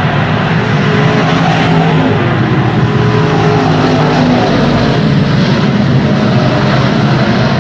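Stock car engine running loud and steady at racing speed, its pitch wavering slightly on and off the throttle.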